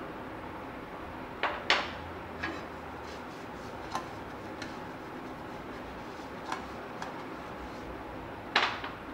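Kitchenware being handled on a counter, an aluminium cake mould among it: a few short clinks and knocks, the loudest about two seconds in and again near the end, over a steady low hiss.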